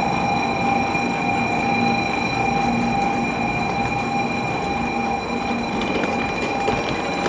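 Shinkansen train running, a steady rumble with constant high-pitched whining tones held through.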